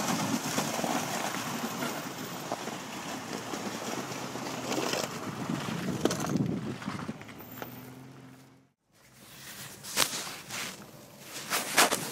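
Jeep Wrangler Rubicon driving slowly over frozen, rutted mud: a steady engine and tyre noise, mixed with wind on the microphone. After a break near the end come a few sharp knocks, as from a vehicle bouncing over the ruts.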